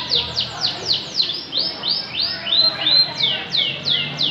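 Canary singing: a quick run of repeated falling whistled notes, about five a second, changing in the middle to a slower series of notes that rise and then hold, and returning to falling notes near the end.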